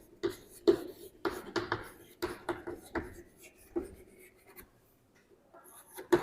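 Writing on a board: a string of short, quick strokes that stops about three-quarters of the way in.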